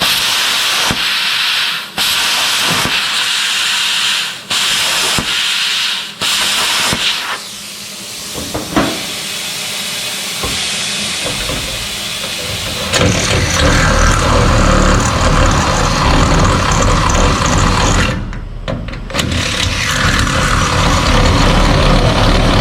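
Welding in a run of short hissing, crackling bursts with brief pauses between them, typical of tack-welding a seam. From about thirteen seconds in, a louder, steadier noise with a low hum takes over and breaks off briefly near the end.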